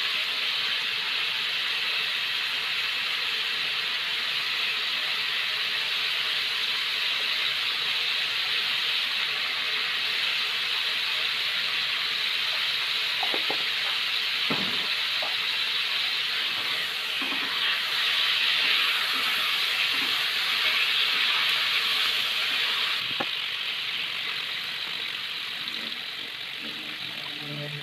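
Cubes of meat sizzling steadily in hot oil in a nonstick wok, with a few light clicks around the middle. The sizzle grows a little quieter in the last few seconds as sliced garlic, shallots and red chilies are tipped into the pan.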